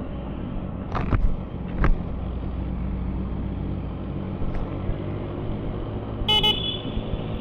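Motorcycle engine idling steadily, likely the CFMOTO 675SR-R's 675 cc inline three. Two short sharp sounds come about one and two seconds in, and a vehicle horn toots briefly near the end.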